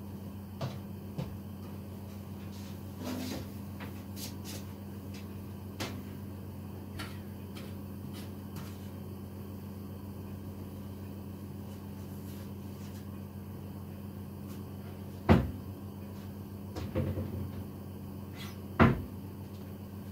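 Kitchen cupboard doors and cookware being handled: scattered light clicks, then two sharp knocks about fifteen and nineteen seconds in, over a steady low hum.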